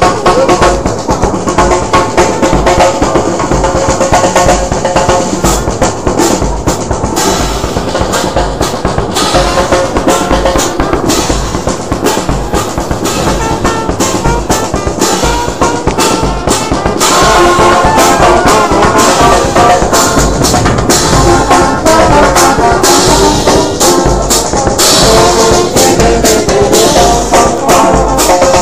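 Brass band playing borborbor: trumpets and trombone carry the tune over a busy, steady beat on bass drum and hand drums. The playing gets louder about 17 seconds in.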